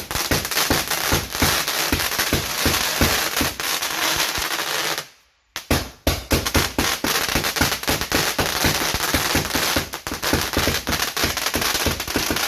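Fireworks going off in a rapid string of sharp cracks and pops, many a second, broken by a short silence about five seconds in.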